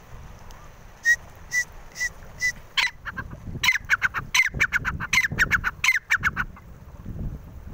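Partridge (tittar) calling at close range: four short, clear notes about half a second apart, then a fast run of louder, harsher notes, about four or five a second, that stops after about three seconds.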